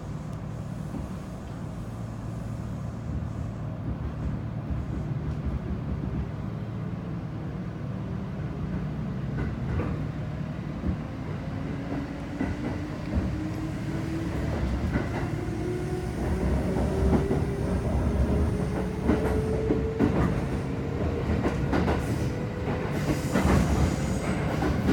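Kintetsu 2610-series electric train accelerating away from a station, heard from inside the passenger car: a motor and gear whine rising steadily in pitch from about five seconds in, over a low running rumble, with wheel clicks over the rail joints coming more often as it picks up speed.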